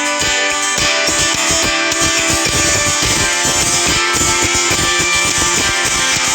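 A Nokia E5 ringtone playing: guitar-led instrumental music with a steady beat.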